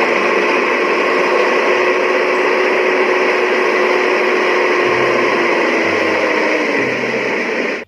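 Dump truck's diesel engine held at high revs to drive the hydraulic hoist as the loaded bed tips up, a steady loud drone with a whine that sags slightly in pitch near the end before cutting off suddenly.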